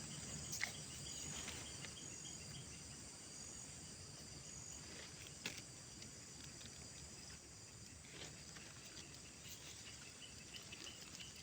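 Insects chirping steadily at a high pitch, with a few faint clicks.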